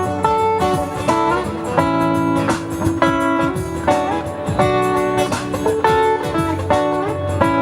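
Guitar playing an instrumental passage: plucked single notes and ringing chords that change every second or so, with a few notes sliding in pitch.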